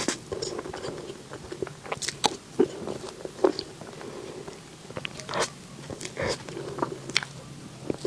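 Close-miked eating of desserts: bites and chewing, with a number of sharp, crunchy snaps.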